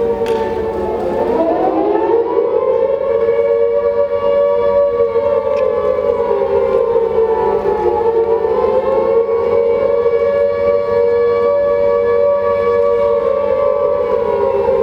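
Air-raid siren wailing. Its pitch climbs about a second in, sags slowly around the middle, climbs again, and begins to fall near the end.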